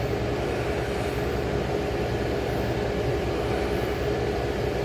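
A 35-year-old General Electric Carry Cool window air conditioner running steadily: a constant fan-and-compressor hum with a steady mid-pitched tone over it.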